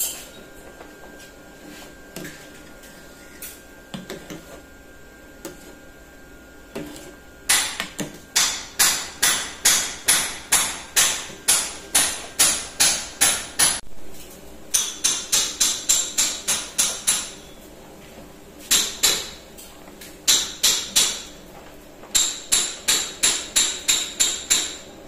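Sharp knocks with a slight ring, about two or three a second, in several quick runs that stop and start, beginning about seven seconds in. Before that there are only a few scattered knocks over a faint steady tone.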